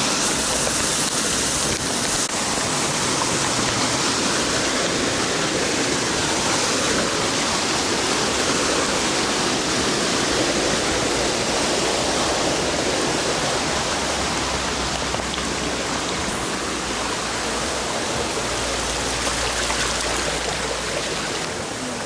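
Waterfall and its stream rushing, a steady, even roar of water with no breaks.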